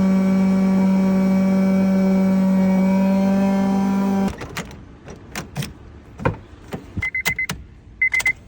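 A steady electric motor hum at one pitch cuts off suddenly about four seconds in. Then come a few clicks and knocks, and near the end two short runs of rapid high-pitched electronic beeps.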